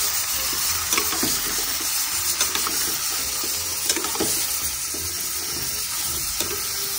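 Meat sizzling as it fries in hot oil in a pan, a steady hiss, with scattered clicks and knocks of a spatula stirring it.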